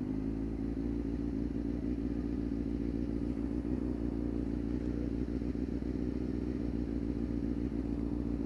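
Motorcycle engine running at steady, low revs, its note holding constant.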